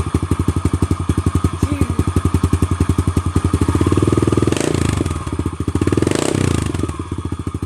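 Yamaha TT-R110 pit bike's single-cylinder four-stroke engine running through a new FMF aftermarket exhaust while warming up, with a steady pulsing idle that swells twice in the middle as the throttle is briefly opened.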